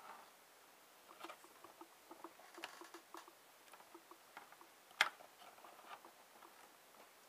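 Quiet handling noise of multimeter test leads: small clicks and rustles of the probes and alligator clips, with one sharp metallic click about five seconds in as a clip is snapped onto the other probe's tip to short the leads.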